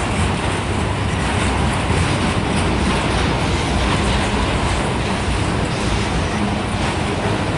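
Autorack freight cars rolling past, a steady noise of steel wheels running on the rails.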